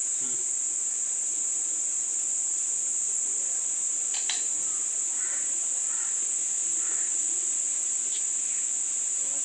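Insects droning, one steady high-pitched note that never lets up, with two sharp little clicks about four seconds in.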